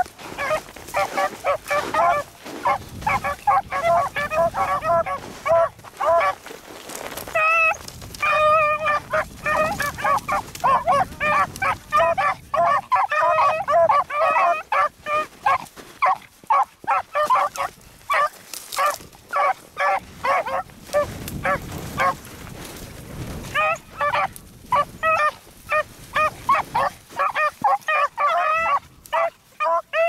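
A pack of beagles baying on a rabbit's scent, a rapid, overlapping stream of short cries from several hounds at once. There is a short lull about three-quarters of the way through before the cries pick up again.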